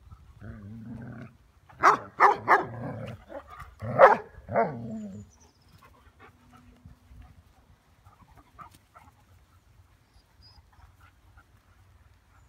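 Dogs at rough play, Giant Schnauzers with a Berger Picard: a low growl, then a burst of loud, sharp barks about two seconds in and two more around four seconds, after which only faint rustles and ticks remain.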